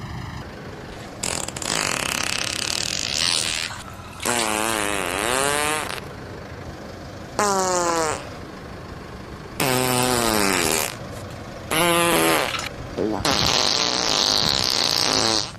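A string of about six farts, each one to two seconds long with short gaps between them. Some have a buzzing pitch that dips and rises or slides down. The last one is a long, hissing fart near the end.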